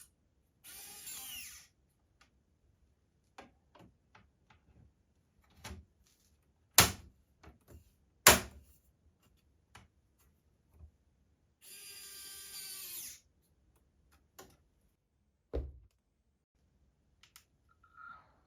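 Small electric screwdriver driving screws in two short runs of about a second each, with sharp clicks and knocks from parts being handled between them.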